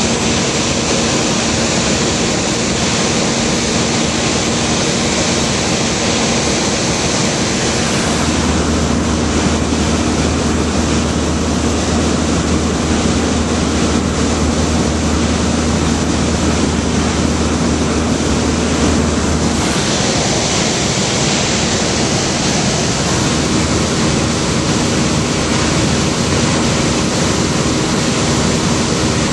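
Steady cabin drone of a single-engine light aircraft in flight: propeller and engine noise with rushing air, loud and unbroken. A deeper hum swells in for about ten seconds in the middle, then drops back.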